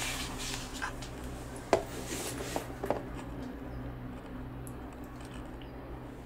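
Steady low hum inside a moving cable-car gondola, with a few light clicks and knocks, the sharpest a little under two seconds in and another near three seconds.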